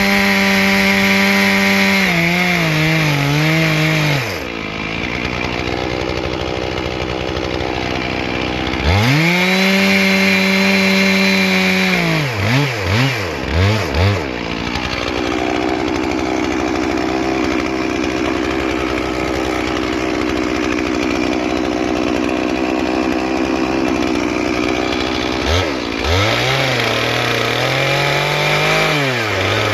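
Stihl MS 461 two-stroke chainsaw bucking logs: the engine runs at full revs, then bogs down and wavers in pitch as the chain cuts through the wood. Between cuts it revs free, with a few quick throttle blips, before a long second cut and another rev-up near the end.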